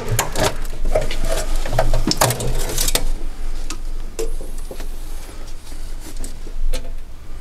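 Tools and engine parts clicking and knocking in quick succession, dense for about three seconds and then scattered.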